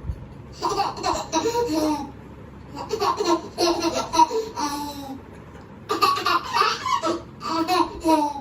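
Laughter in three bouts of a second or two each, with short pauses between them.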